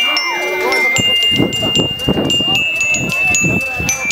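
Voices of a gathered crowd chattering, over a high steady tone that jumps to a new pitch every second or so, with scattered sharp clicks.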